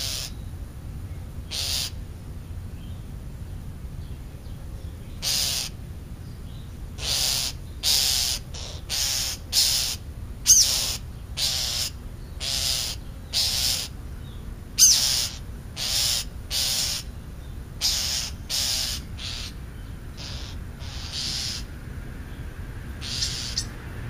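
Crows cawing again and again: a long run of short, harsh caws about one a second through the middle, with a few scattered caws before and after.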